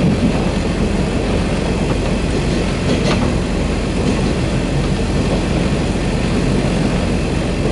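Diesel railcar running, heard from inside the passenger cabin: a steady low engine drone mixed with the rumble of wheels on the rails.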